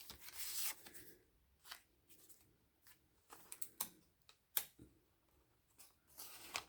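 Faint rustling of paper and card with a few soft taps and clicks, as the pages, flaps and pockets of a handmade paper junk journal are handled and turned.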